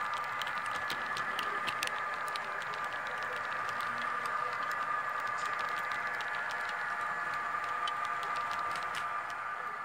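HO-scale model freight cars rolling along the track, their small metal wheels clicking over rail joints in quick irregular ticks, over a steady high whine.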